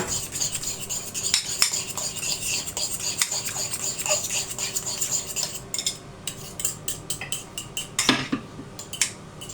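Spoon stirring and scraping in a bowl, mixing coriander into natural yogurt for a dip: a dense run of small clinks and scrapes for about six seconds, then a few separate taps.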